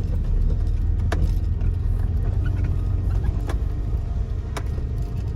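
A steady low rumble with a few sharp clicks, about one, three and a half, and four and a half seconds in.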